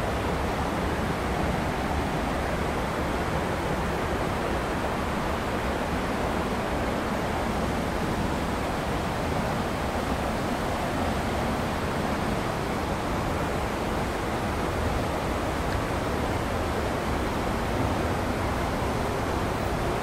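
Steady rush of a waterfall and its river: a loud, even hiss of moving water with no let-up.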